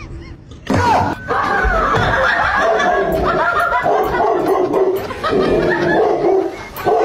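A dog barking over and over, starting about a second in.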